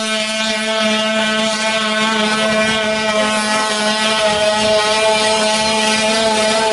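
Boston Dynamics WildCat quadruped robot's onboard combustion engine running loudly at a steady pitch as the robot gallops.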